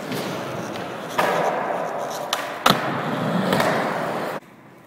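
Skateboard wheels rolling on a concrete floor, with a few sharp knocks of the board, the loudest about two and a half seconds in. The rolling cuts off abruptly near the end.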